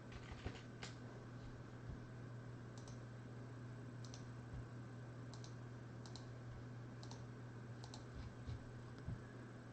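Computer mouse clicking: faint, sharp clicks, often in quick pairs, about one a second, over a steady low electrical hum.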